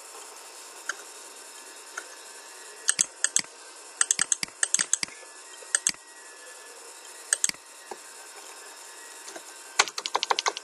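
Computer keyboard keystrokes and mouse clicks from editing code, over a steady hiss. Scattered single clicks and short runs give way to a fast run of keystrokes near the end.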